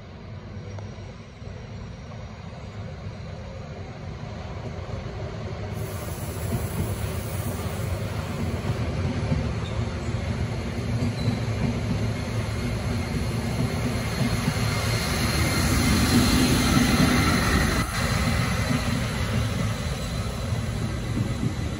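SBB Re 4/4 II electric locomotive rolling slowly along station tracks. Its running rumble and wheel noise grow louder as it approaches, peak about three quarters of the way through, then ease slightly. There is one sharp click shortly after the peak.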